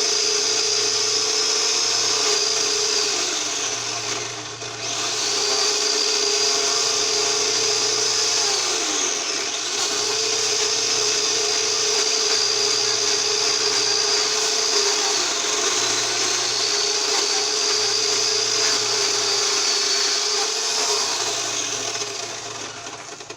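Power saw running steadily, its motor pitch sagging briefly and recovering about four times, roughly every six seconds, before it winds down at the end.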